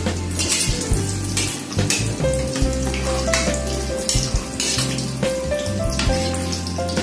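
Battered gourami pieces deep-frying in hot oil in a wok, sizzling and crackling, with a wire mesh strainer clinking against the wok as the pieces are scooped out. Background music with a simple melody and bass plays along.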